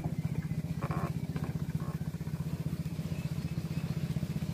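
Small single-cylinder petrol engine of a katinting racing boat idling with a steady, rapid putter.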